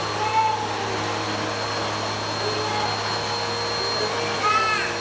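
Vacuum cleaner running steadily with a constant hum and whine. Two short, high, arching calls sound over it: a faint one just after the start and a louder one near the end.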